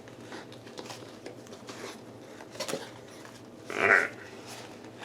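Faint rustling and small clicks of packaging being handled as a parcel is opened, with one brief louder rasp about four seconds in.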